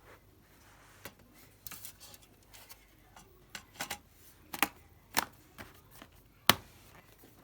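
Irregular sharp clicks and taps, the loudest a single hard click about six and a half seconds in, as from hard plastic laptop parts being handled and snapped.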